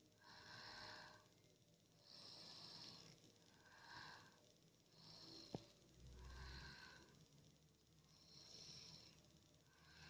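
A sleeping boy breathing noisily with faint, rhythmic snoring breaths, about one every second and a half. There is a single small click midway.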